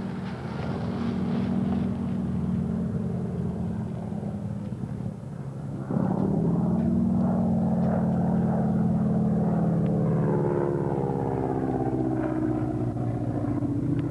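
An engine running steadily, getting suddenly louder about six seconds in; from about ten seconds its pitch slides downward, as when it passes close by.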